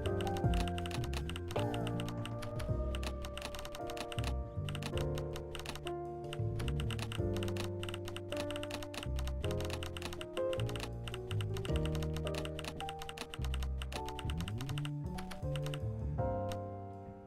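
Music with held bass notes and chords that change every second or so, some notes sliding, over a dense run of rapid, irregular clicks.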